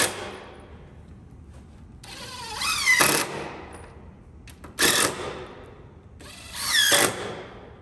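Power drill driving screws into the pre-drilled holes of a wooden picnic tabletop, in three short runs about two seconds apart. Each run is a motor whine that rises in pitch and cuts off sharply as the screw seats; the middle run is the briefest.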